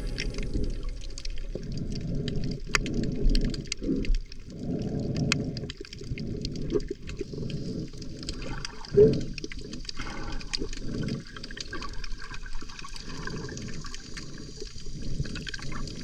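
Muffled water sloshing and surging past a camera held underwater while snorkelling, in regular surges about once a second, with small clicks and crackles.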